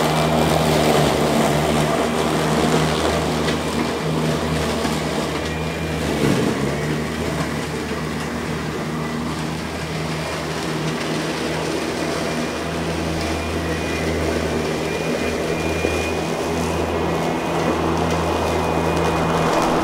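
Greenworks Pro 60V electric zero-turn riding mower running as it drives through tall grass, with a steady low motor hum and a faint high whine over the swish of the blades and grass.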